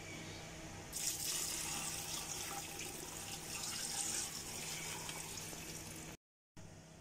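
Water poured in a steady stream from a jug into a cast aluminium cooking pot, splashing onto sliced tomatoes and meat. The pouring starts about a second in and stops abruptly near the end.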